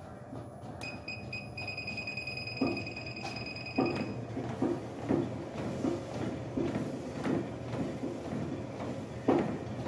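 LEXCO treadmill running as its speed is raised from 1 to 3.8 km/h, with walking footsteps thudding on the belt about twice a second. A steady high tone sounds from about a second in until about four seconds in.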